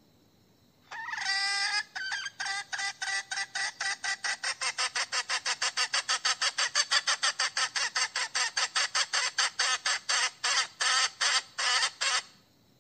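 A hen calling for a rooster. It gives one drawn-out note about a second in, then a fast, even run of short notes, about five a second, for some ten seconds, and stops abruptly near the end.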